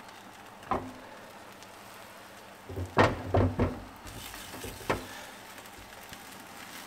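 Silicone spatula scraping and knocking against a non-stick frying pan as beaten eggs are pushed around, over a faint steady sizzle of the eggs frying. There is one knock about a second in, a cluster of knocks around three seconds, and another near five seconds.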